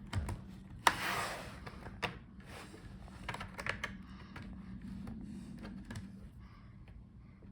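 Plastic pry tool working around the bottom case of a Dell G15 5515 laptop, irregular clicks and scrapes as the case's snap clips release. The sharpest snap comes about a second in, followed by a short scrape.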